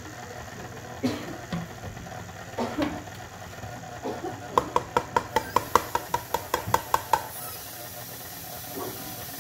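Electric tilt-head stand mixer running steadily, its beater working flour into a cream cheese and butter cookie dough in a steel bowl. A few knocks come in the first seconds, and from about halfway a quick, even run of sharp ringing clicks, about six a second, lasts a couple of seconds and then stops.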